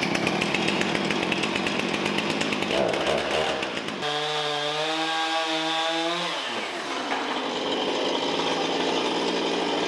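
Husqvarna Rancher 460 two-stroke chainsaw running at high revs just after a pull start. About six and a half seconds in the throttle is let off and the engine falls back to a steady idle.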